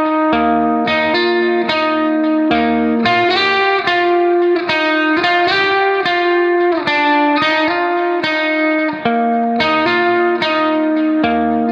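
Background music: a plucked guitar melody over a steady bass line, played without pause.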